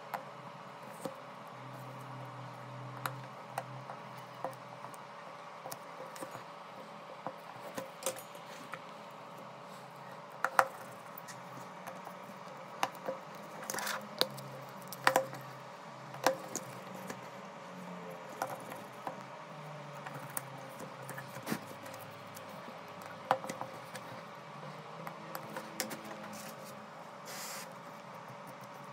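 Irregular small clicks and taps of hand tools and parts on a OnePlus 8 smartphone being repaired, with a couple of brief scraping sounds, over a steady faint hum.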